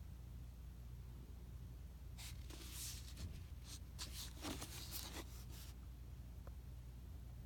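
Faint rustling and sliding of books being handled, a cluster of short brushes in the middle, over a steady low hum.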